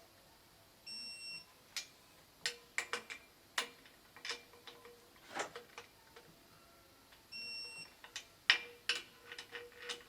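Metal clicks and knocks of a torque wrench and socket working the inlet manifold bolts, irregular and sharpest about 8.5 s in. A short electronic beep sounds twice, about a second in and again near the 7.5-second mark.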